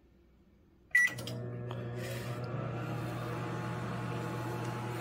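Samsung microwave oven starting up: a short beep and click as the start button is pressed about a second in, then the steady hum of the oven running as it begins its cooking cycle.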